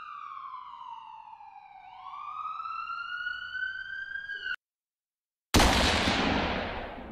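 Police siren wailing: one slow sweep that slides down in pitch and then back up, cutting off abruptly. After about a second of silence, a loud burst of noise starts and dies away over about two seconds.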